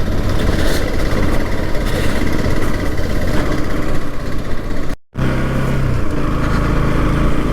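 Motorcycle running on the road with heavy wind rush on the microphone. The sound cuts out briefly about five seconds in, then the engine and wind return with a steadier low hum.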